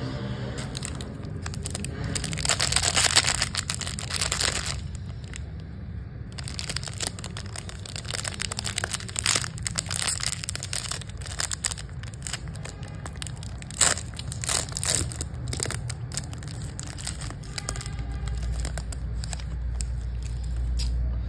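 Plastic candy wrapper crinkling and crackling as hands twist and pull it open, busiest from about two to five seconds in and again from about six to seventeen seconds, over a steady low hum.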